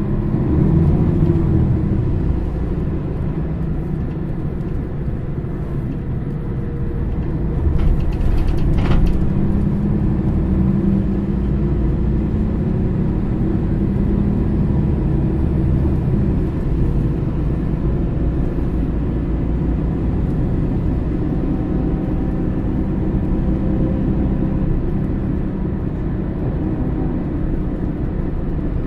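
Mercedes-Benz O550 Integro coach's diesel engine idling steadily at a standstill, a low rumble. A brief sharper noise about eight seconds in.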